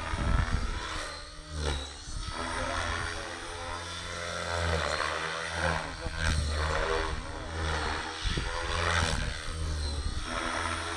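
Align T-Rex 550E DFC electric RC helicopter in 3D aerobatic flight: its rotor blades and motor whine and whoosh, with the pitch rising and falling again and again as it manoeuvres.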